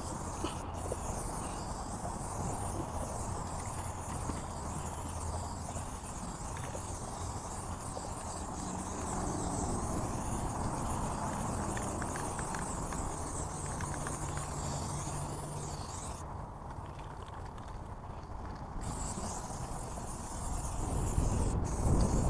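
Aerosol spray-paint can hissing as it is sprayed onto a brick wall, with one pause of a couple of seconds about 16 seconds in. A low rumble grows louder near the end.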